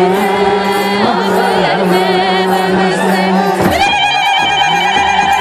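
A crowd of Ethiopian Orthodox worshippers singing a hymn together: a steady, held chant with higher wavering voices above it, and a new high note joining in near the end.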